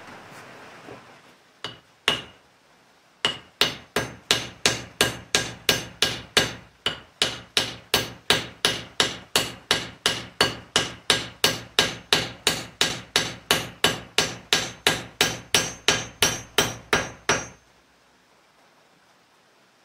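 Hammer striking a hatchet that is being fitted onto its wooden handle. Two single blows come first, then a steady run of ringing blows, about three a second, that stops suddenly a couple of seconds before the end.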